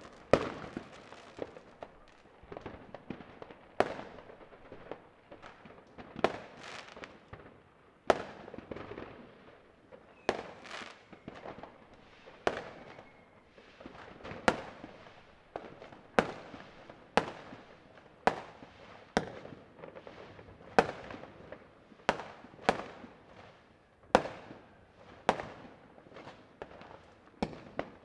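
New Year's fireworks and firecrackers going off all around: sharp bangs about one or two a second, each trailing off in an echo, over a steady background crackle of more distant fireworks.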